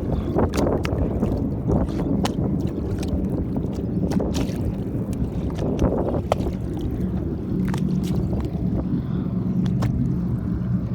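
Small waves lapping and slapping against the hull of an anchored boat, with irregular sharp little splashes over a steady low rumble of wind on the microphone.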